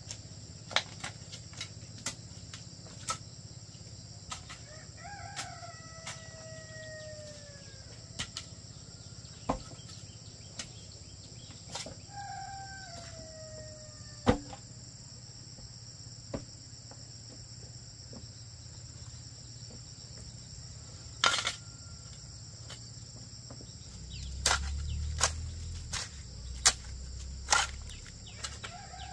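Rooster crowing three times, each a long call that falls in pitch at the end, over a steady high insect drone, with scattered sharp clicks and knocks.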